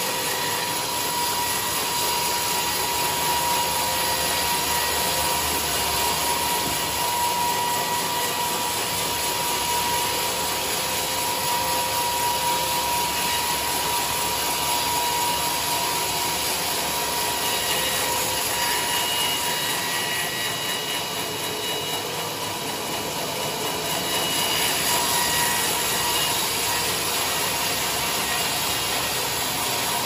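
Sawmill band saw cutting lengthwise through a large teak log: a steady, loud rush of sawing noise with a steady high whine running through it.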